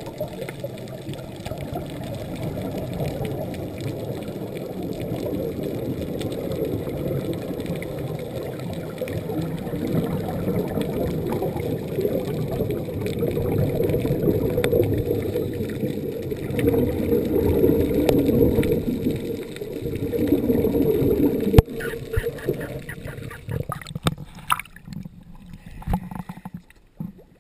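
Muffled rushing and bubbling of scuba exhaust bubbles and water, heard through a GoPro's underwater housing during the ascent. After about twenty seconds this drops away into quieter, scattered splashes as the camera reaches the surface.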